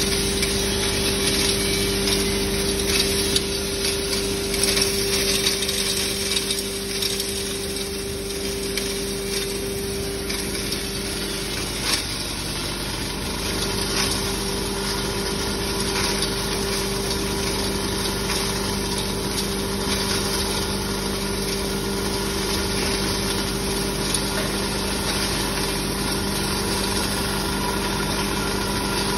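Electric-motor-driven herb grinding machine (pulverizer) running under load as dried herb roots are fed into its hopper: a steady hum over a constant noisy grinding, with occasional sharp knocks.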